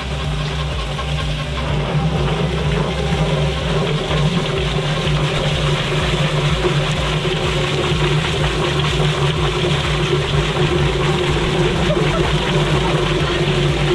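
Yardbird drum chicken plucker running, its spinning floor tumbling scalded chickens against the rubber fingers while a hose sprays water into the drum: a steady motor hum with a churning, wet rush. It gets louder about a second and a half in.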